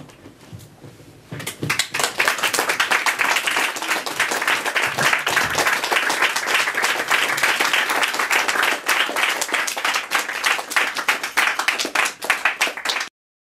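Audience applauding: a small crowd breaks into clapping about a second in and keeps up a steady, dense applause, which cuts off suddenly near the end.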